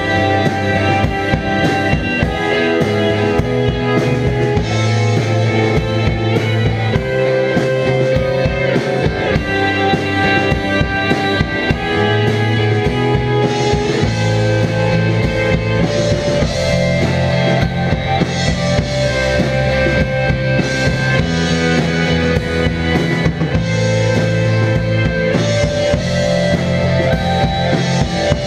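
Live rock band playing: distorted electric guitars and bass guitar over a drum kit keeping a steady beat.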